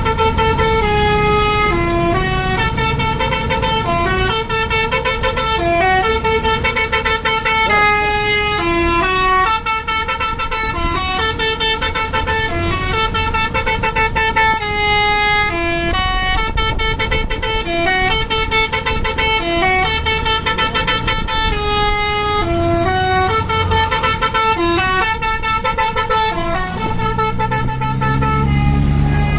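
Bus's Basuri telolet horn, a multi-tone air horn, playing a melody note after note, about two notes a second, over the low rumble of the bus.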